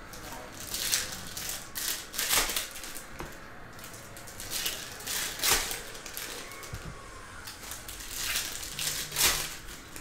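Foil trading-card pack wrappers crinkling and tearing open, in several short bursts of sharp rustling.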